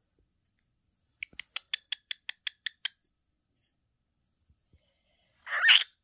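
A pet animal makes a quick run of about ten short, sharp chirps, then one loud call near the end.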